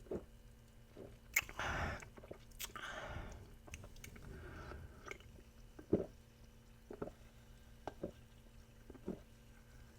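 Close-miked mouth sounds of drinking soda: twice a click followed by a short hiss of a sip, then soft gulps about once a second.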